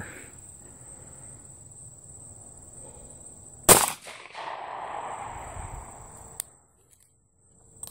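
A single 9mm pistol shot, sharp and loud, a little under four seconds in, followed by an echo that fades over about two seconds.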